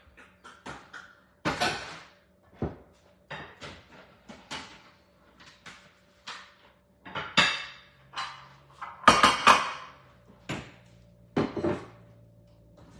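Dishes and containers clinking and knocking together as they are taken from a cabinet and set down on a stone countertop: a long, irregular run of sharp clatters, loudest about seven seconds in and again around nine seconds.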